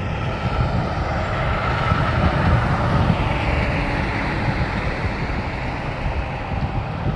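A tractor-trailer driving past close by, its engine and tyre noise swelling to a peak about two to three seconds in and then easing off.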